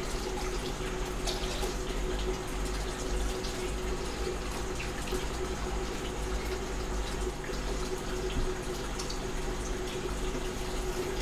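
Water running and splashing steadily into a partly drained aquarium, over the steady hum of an electric pump, with a few light knocks of hose handling.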